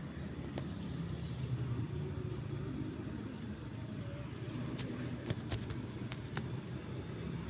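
A low steady motor hum, like a vehicle engine running nearby, with a few short sharp clicks.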